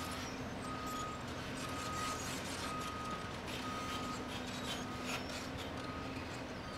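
Travel alarm beeping about once a second over the running diesel engine of a Cat 320C excavator as it moves on its tracks, with scattered knocks and scrapes of dirt and steel. The beeps grow fainter near the end.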